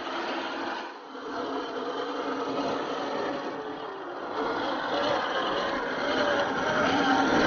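Small RC toy jeep's electric motor and plastic gearbox whirring with a wavering pitch, along with tyres scraping over rough ground, getting louder toward the end.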